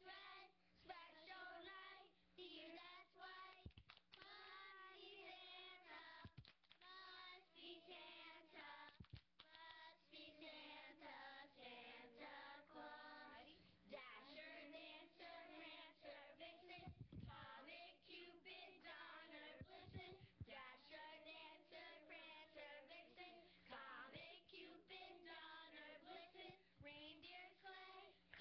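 A group of young children singing a Christmas song together in chorus, with a woman's voice singing along and leading them.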